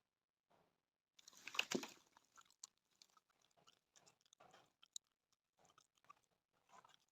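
Faint scratching, crunching and small clicks of hand work on small wooden pieces. The loudest stretch comes about a second and a half in, followed by scattered light clicks and scrapes.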